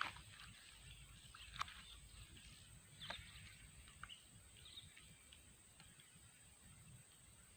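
Quiet outdoor background with a few brief, sharp sounds scattered through it, the loudest about a second and a half in and at about three seconds.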